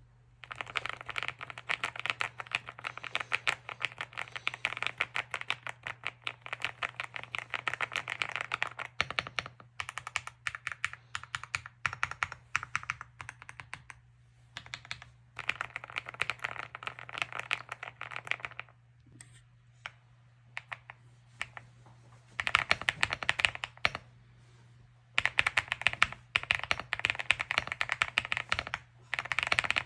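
Fast typing on a Leobog Hi75 mechanical keyboard with Gateron Smoothie Silver linear switches and Black Jade keycaps: dense runs of rapid keystroke clicks, broken by a few short pauses and a longer gap about two-thirds of the way through.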